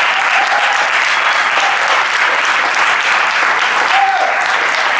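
Audience applauding steadily in a lecture hall, with one person calling out briefly about four seconds in.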